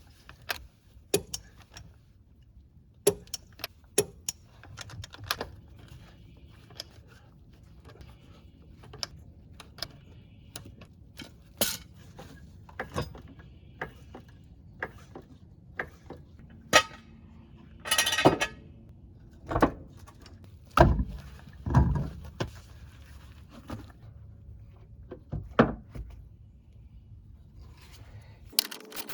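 Hand tools clicking and clanking on metal while the rear shocks are bolted in: scattered sharp clicks and knocks, a denser burst of clicking about 18 seconds in, and a few louder knocks a couple of seconds later.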